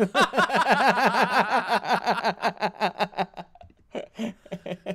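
Two men laughing hard, a quick run of rapid ha-ha pulses that fades into lighter chuckling after about three seconds.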